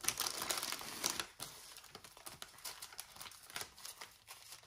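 Small plastic zip-lock bags of diamond painting drills crinkling and rustling as they are shuffled by hand, loudest in the first second or so.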